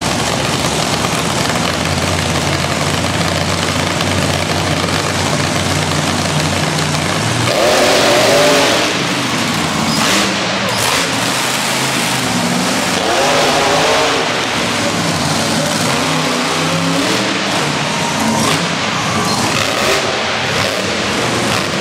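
Monster truck engine running steadily, then revving hard and rising and falling in pitch as the truck climbs over a pile of junk cars, with a crash of impact about ten seconds in. It keeps revving in swells afterwards.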